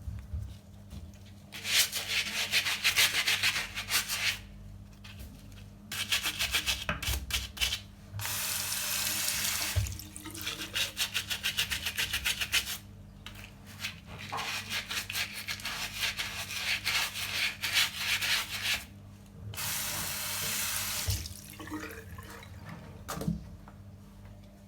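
Shoe scrubbed with a stiff brush in spells of rapid back-and-forth strokes, with water running in between to rinse it.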